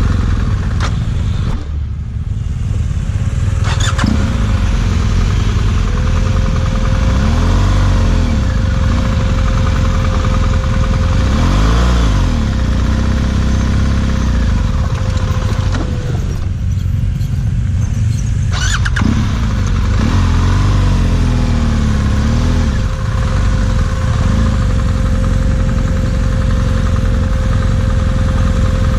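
BMW GS adventure motorcycle being ridden off-road, its engine revs rising and falling several times over a constant low rumble.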